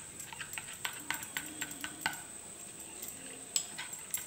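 Curd and ground masala paste being mixed by hand in a small glass bowl: light, irregular clicks and taps against the glass as the fingers stir.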